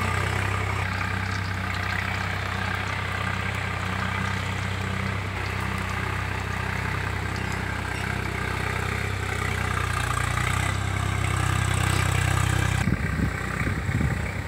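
An engine idling steadily as a constant low hum; about thirteen seconds in it gives way to gusty wind noise on the microphone.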